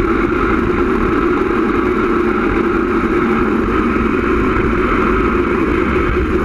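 Loud, steady rush of wind over an action camera carried at speed downhill on a kick scooter, with the scooter's wheels rumbling on the asphalt.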